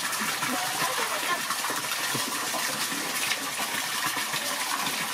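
A steady stream of water pouring and splashing into a large stainless-steel basin already full of water.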